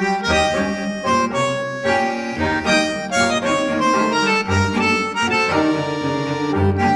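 Instrumental music: a melody of held, changing notes over a recurring low bass note.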